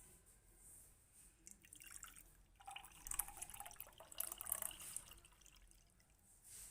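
Thick onion-and-honey juice being poured into a glass bottle, trickling and dripping faintly. It starts about a second and a half in, is busiest in the middle and trails off near the end.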